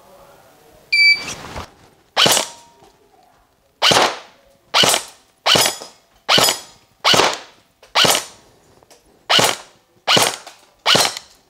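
A shot-timer beep about a second in, then single shots from an M4-style airsoft electric rifle (AEG) fired one at a time, about ten in all at uneven intervals. Each is a sharp crack with a short ringing tail.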